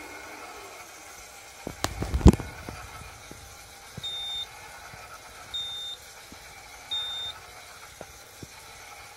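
A cluster of knocks and clicks about two seconds in, then three short high-pitched electronic beeps about 1.4 seconds apart from the Raytheon R10X radar display unit, over a faint steady hum.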